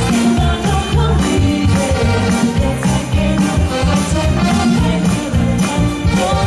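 Live soul band playing a classic Motown song, with a steady beat and a walking bass line.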